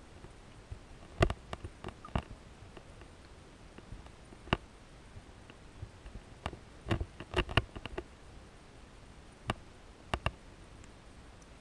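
Scattered sharp clicks and taps, about a dozen at irregular intervals and some in quick clusters, picked up underwater over a faint steady hiss.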